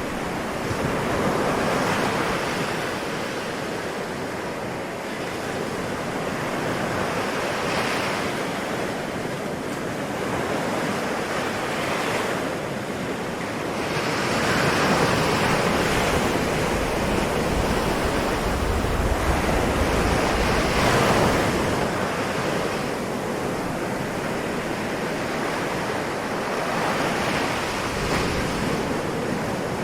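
Ocean waves washing onto a shore, a continuous rush of surf that swells and ebbs every few seconds, louder and deeper for a stretch around the middle.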